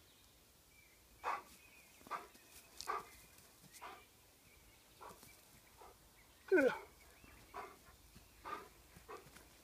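Bearded collie making a series of short, quiet barks and yips, with one louder call about six and a half seconds in that falls in pitch.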